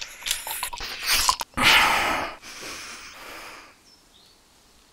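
A person's loud, noisy breath out, about a second and a half in, after scattered clicks and rustling, trailing off over the next second or two.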